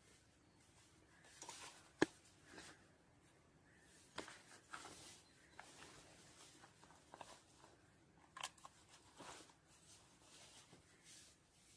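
Near silence broken by scattered faint clicks and rustles, with one sharp click about two seconds in.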